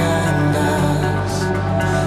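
Background music: a steady electronic track with sustained tones.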